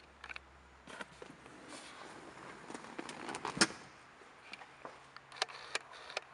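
Scattered light clicks and knocks over a faint hiss, the sharpest a single click a little past halfway; handling and movement noise as the camera is carried through the car's cabin.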